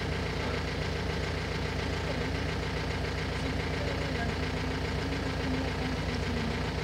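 Vehicle engine idling steadily, an even low rumble.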